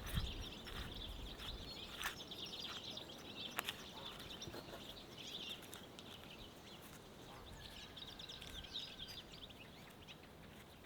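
Birds chirping steadily in the background, with scattered sharp clicks and a few low thumps near the start.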